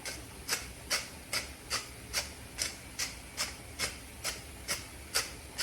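Hand-twisted seasoning grinder grinding salt and pepper over cooking chicken: a steady run of short rasping crunches, about two and a half a second.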